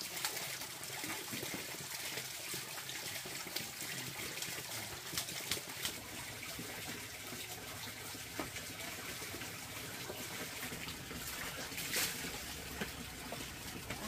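Running water trickling and splashing steadily, with scattered light knocks.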